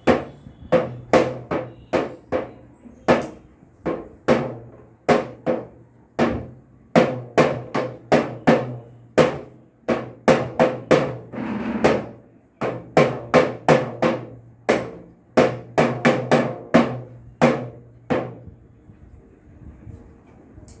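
A toy drum beaten with a pair of small ball-tipped mallets: a few dozen uneven single strikes, roughly two a second, with a quick flurry about twelve seconds in, stopping a few seconds before the end.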